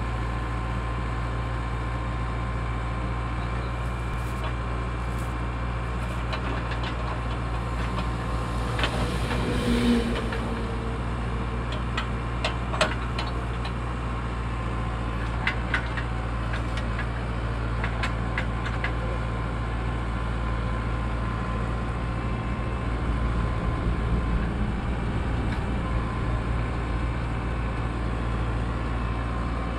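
JCB 2DX backhoe loader's diesel engine running steadily while it powers a hydraulic earth auger boring into soil. A few sharp clicks and knocks come through the middle stretch.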